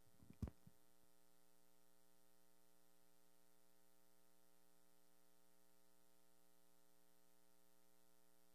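Near silence with a faint steady electrical hum. There are a few small clicks and one brief knock about half a second in.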